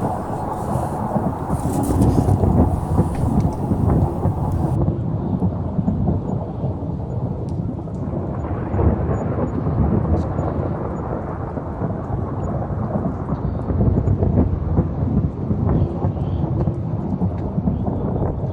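Storm wind buffeting the microphone during a snowstorm: a steady low rumble that swells and eases.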